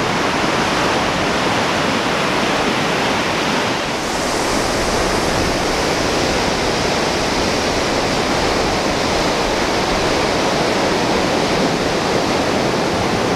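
Ocean surf breaking on a sandy beach: a steady, continuous rush of waves, with a little more hiss from about four seconds in.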